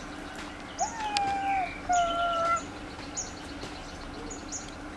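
Baby macaque giving two drawn-out, high-pitched coo calls a second apart, the first rising then level, the second level. Faint short high chirps repeat about twice a second in the background.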